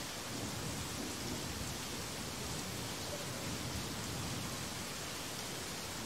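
Steady rain falling, an even unbroken hiss.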